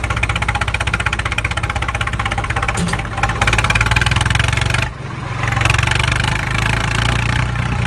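Diesel engine of heavy machinery running with a fast, even chugging beat, dipping briefly about five seconds in.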